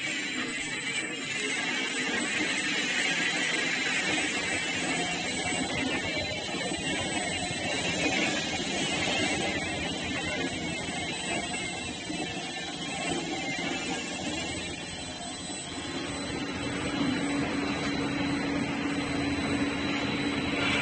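Relief sanding machine for wood running steadily: a continuous noisy whir with a constant high-pitched whine.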